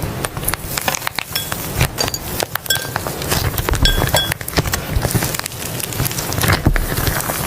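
Soft slime being squished and worked by hand, giving a dense run of small crackling pops and clicks, with a few brief high pings among them.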